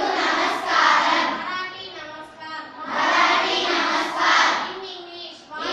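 A class of girls' voices chanting together in unison, in two loud group phrases with a short pause between.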